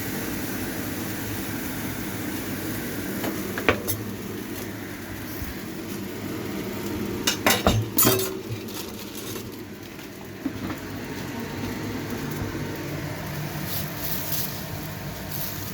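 A pot cooking on the stove with a steady hiss. Metal utensils and dishes clink against it: once about four seconds in, in a cluster of clatters around seven to eight seconds, and once more at about ten and a half seconds.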